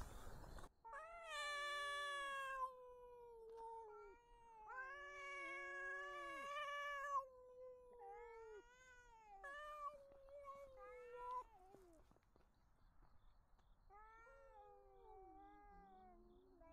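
Two domestic cats, a brown tabby and an orange-and-white cat, caterwauling at each other in a territorial standoff. Two long, drawn-out yowls with wavering pitch come first, followed by a string of shorter yowls that grow fainter toward the end.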